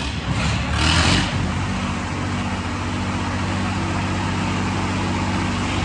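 Swaraj 855 tractor diesel engines running steadily under load in a tractor tug-of-war, with a brief loud surge about a second in.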